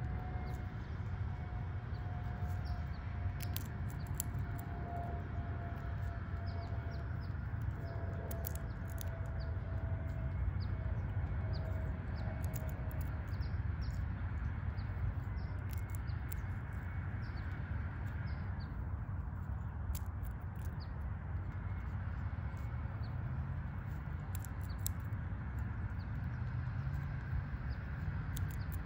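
Outdoor ambience dominated by a steady low rumble, with short high bird chirps and sharp little clicks from a fox squirrel cracking sunflower seeds. A faint steady tone sags slowly in pitch through the first half and fades out.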